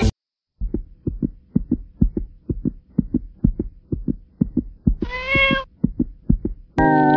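A run of soft low thumps, about four a second, with a single short cat meow about five seconds in.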